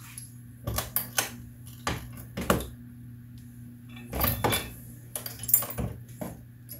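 Irregular metallic clicks and clacks from a Dillon 550C progressive reloading press being worked by hand, with bullets clinking as they are picked from a plastic tray. There are about a dozen sharp knocks, some in quick pairs, over a faint steady hum.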